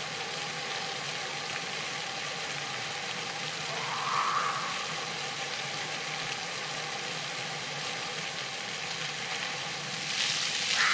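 Splash-pad fountain jets spraying water onto wet paving, a steady hiss. There is a brief high-pitched sound about four seconds in. Near the end many more jets burst on at once and the hiss jumps louder.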